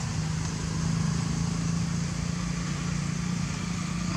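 A steady low engine hum, running at constant speed.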